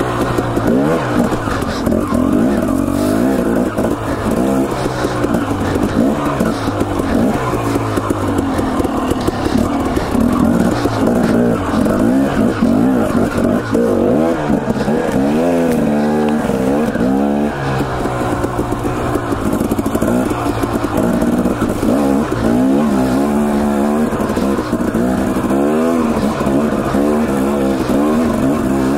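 Husqvarna TE 250 two-stroke dirt bike engine revving up and down continually under throttle on a rocky climb, with quick throttle blips around the middle, plus wind and trail noise.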